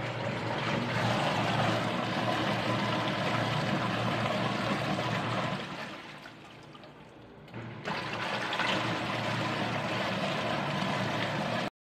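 Water running steadily in a HOMEFUN 8 kg mini washing machine. It fades down about six seconds in and picks up again near eight seconds.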